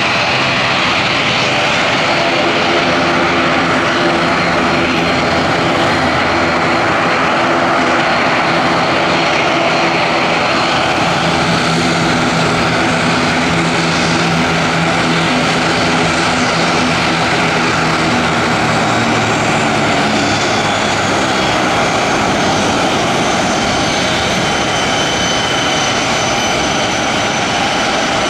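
Fixed-wing airplane engines running steadily and loud, with a stack of steady low droning tones and, in the last third, thin high whines that slowly fall in pitch.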